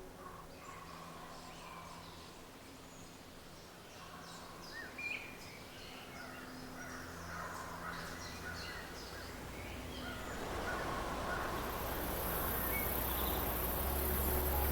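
Wild birds chirping and calling in woodland, many short high notes. About ten seconds in, a broad rushing noise with a low rumble rises and grows louder.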